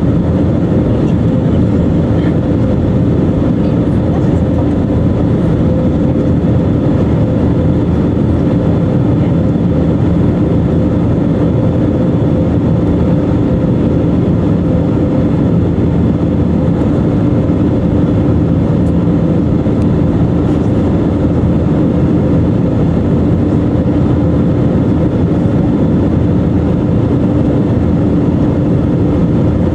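Steady cabin noise of an Airbus A320neo airliner in flight: airflow rush and the drone of its CFM LEAP-1A engines, with a constant low hum under it.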